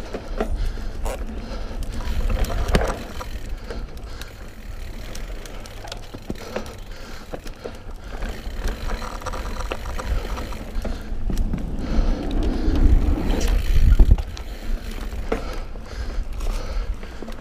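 Mountain bike rolling along a dirt singletrack trail: tyre noise with scattered clicks and knocks from the bike over bumps, over a low rumble that swells twice, loudest about 14 seconds in.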